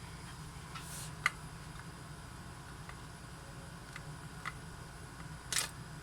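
A few light plastic clicks and taps from handling a Hubsan Zino drone and its gimbal cover, with two short rustles, one about a second in and one near the end, over a steady low hum.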